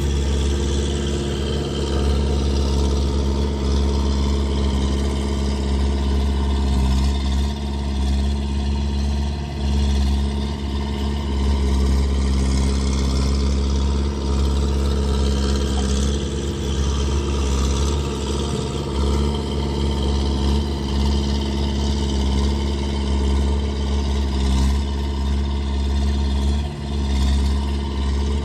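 Skid steer engine running steadily as the machine works, with small rises and dips in engine speed. It sounds raw because the machine needs an exhaust.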